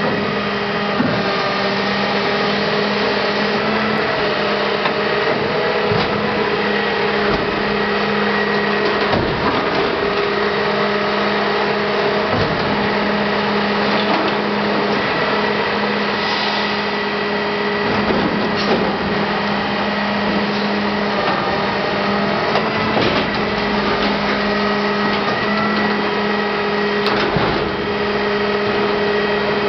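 Side-loading garbage truck running, its engine and hydraulic lifting arm giving a steady hum with two held tones as the arm raises a large plastic waste container, tips it into the hopper and lowers it again. Scattered knocks and clunks from the arm and container come through the hum.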